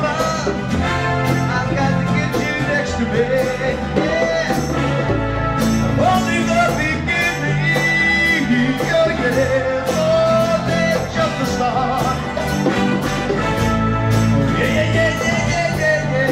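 Live band playing a rock song: two acoustic-electric guitars strummed over congas and timbales, with a man singing lead into a microphone.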